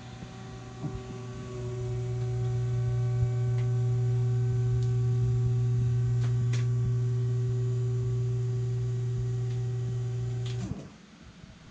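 Electric motor of a powered lift raising a saloon table and floor hatch off a boat's engine compartment. It gives a steady hum that builds over the first two seconds and cuts off suddenly near the end, with a few light clicks.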